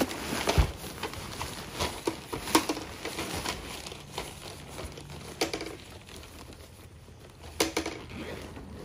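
Rustling and crinkling of a deflated inflatable's fabric being handled, with scattered clicks and a few louder knocks.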